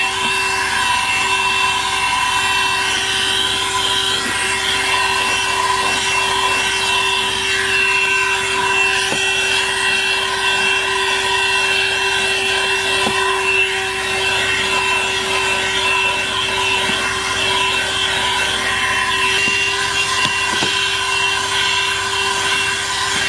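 ThisWorx 12-volt corded car vacuum running steadily, its small motor giving a constant whine over the rush of air through the nozzle as it vacuums the car.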